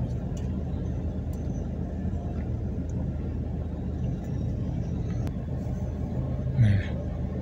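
Car engine idling, heard from inside the cabin as a steady low hum and rumble, with one short, louder sound near the end.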